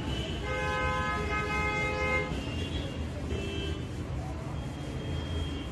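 A vehicle horn sounds one steady note for about two seconds, followed by shorter, fainter honks, over a low steady rumble.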